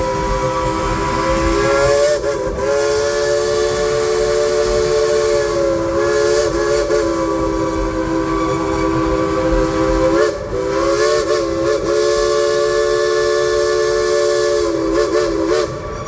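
Dollywood steam train's whistle blowing a long blast of several notes at once over a hiss of steam. The pitch wavers and dips briefly a few times, and the whistle cuts off near the end.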